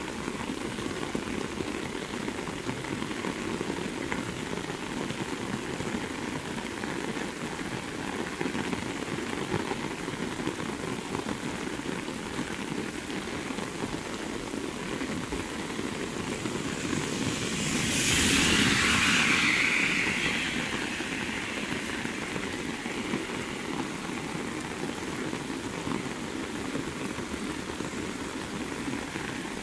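Very heavy rain falling steadily, a dense even hiss. About two-thirds of the way through, a louder rushing swell rises and fades over a few seconds.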